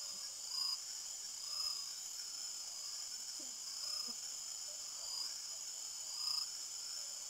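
Night chorus of crickets and other insects: a steady high-pitched trilling, with a short call repeating roughly once a second over it.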